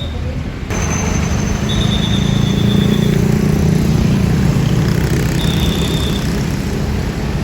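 Large diesel bus engine running close by, rising in loudness about a second in and then holding a heavy, steady rumble. Two brief thin high whistle-like tones sound over it.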